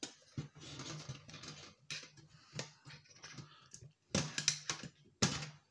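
Quick clicks and rattles of metal and plastic parts being handled while a hard drive is worked out of a scrapped electronic unit, with a dense run of louder clicks about four seconds in.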